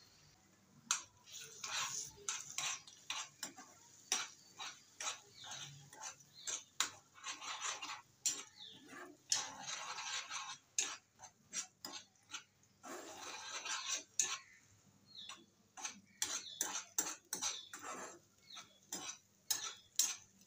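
A spatula knocking and scraping against a frying pan, with many irregular sharp clacks and a few longer scrapes, as eggs are broken up and stirred into fried onions.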